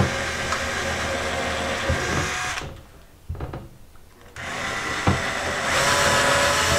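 Cordless drill with a 2 mm bit running steadily as it bores two pilot holes into a wooden door. It stops about two and a half seconds in, then starts again under two seconds later for the second hole.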